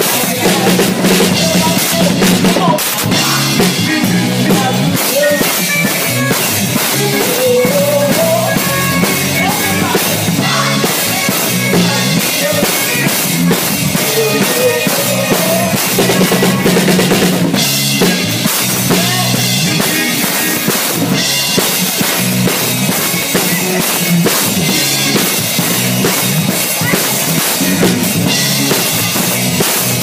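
Drum kit played loudly and continuously: bass drum, snare and cymbal hits, picked up close to the kit.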